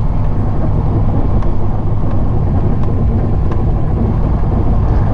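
Semi-truck diesel engine running at low speed as the truck rolls slowly, heard from inside the cab: a steady low rumble with a few faint clicks.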